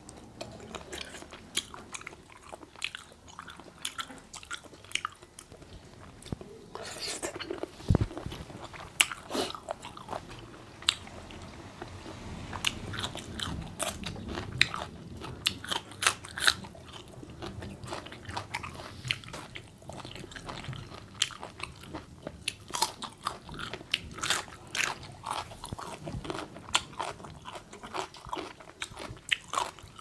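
Close-up mouth sounds of eating a spicy seafood salad of unsoaked instant noodles: repeated crunchy biting and wet chewing with many sharp clicks, plus a dull bump about eight seconds in.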